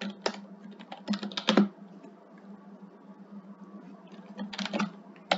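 Computer keyboard typing: short runs of keystrokes in the first two seconds, a pause, then another run near the end, over a steady low hum.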